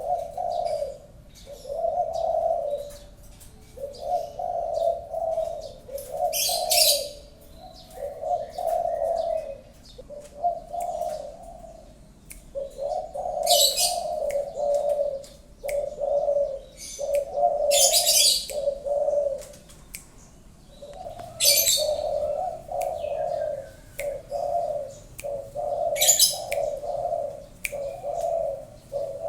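Spotted dove (tekukur) cooing over and over in short rhythmic phrases. Now and then a brief high-pitched chirp cuts in between the coos.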